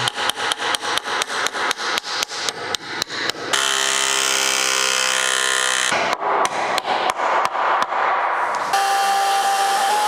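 A fast, even series of knocks, about five a second, from work on a timber stud wall. It is broken twice by the steady whine of a power tool's motor: for about two seconds in the middle, and again near the end.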